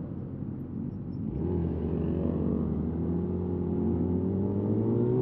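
Yamaha YZF R6 inline-four running through a de-catted Akrapovic slip-on exhaust. For the first second and a half it is a rough off-throttle note; then the throttle opens and the engine pulls, its pitch climbing steadily and its sound growing louder.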